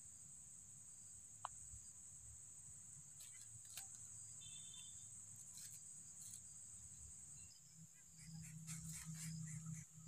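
Steady high-pitched chirring of insects. Light crackles and rustles of dry grass come a few seconds in and again near the end, as the coucal moves about the nest.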